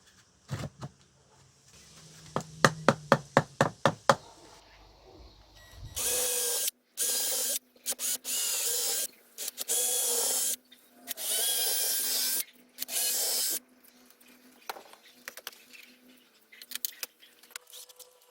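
A handheld power drill runs in about five bursts of a second or so each, starting and stopping. Before it, there is a quick run of sharp knocks, about four a second.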